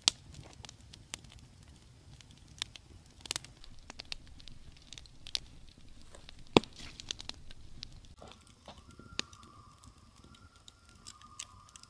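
Campfire crackling, with irregular sharp pops and snaps over a faint low hiss. About eight seconds in, a steady high tone from an unidentified source begins and carries on.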